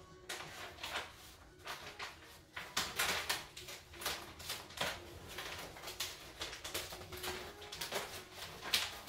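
Self-adhesive contact paper rustling and crinkling in a string of short, irregular crackles as the sheet and its peeled backing are handled.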